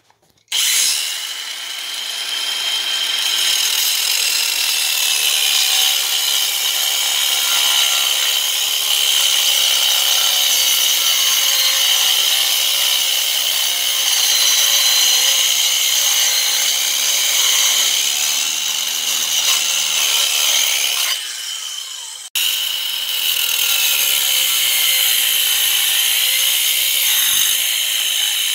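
Sturm AG9020CL angle grinder, run off a 12-volt battery, cutting into brick with a diamond disc: a loud, high whine with grinding that wavers as the disc bites. It starts about half a second in, dips about 21 seconds in, then comes back suddenly.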